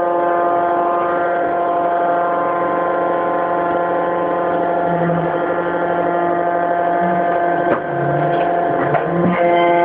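Hydraulic baler's power unit running with a steady, many-toned droning hum, with a few sharp knocks in the last two seconds.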